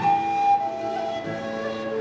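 Swedish folk bridal march played on two recorder-type flutes carrying the melody in held notes, with a twelve-string guitar and nyckelharpa accompanying.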